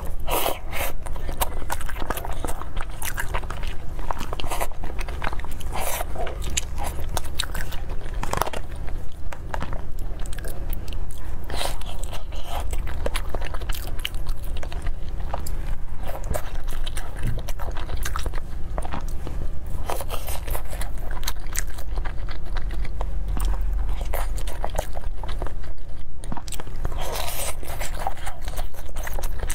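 Close-miked eating sounds: biting and chewing soft food, with many small mouth clicks throughout.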